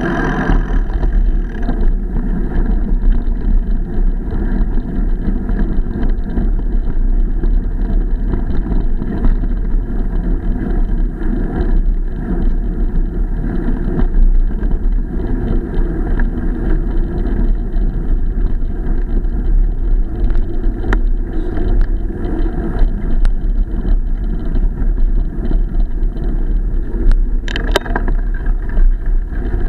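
Rumbling wind and rolling noise from a bicycle ride over a rough trail, with frequent small rattling knocks and one brief high squeal near the end.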